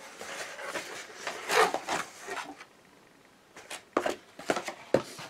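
Cardboard packaging being handled: flaps of a cardboard mailer box rubbing and scraping as it is opened, then several sharp clicks and knocks as the boxed item is handled, after a brief pause.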